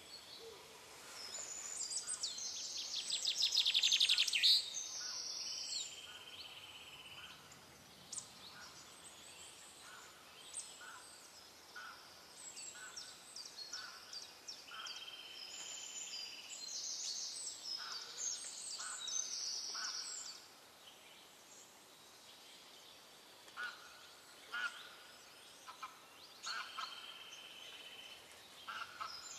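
Wild birds calling and singing, with high chirps and trills repeating throughout. The loudest is a rapid trill about two to four seconds in.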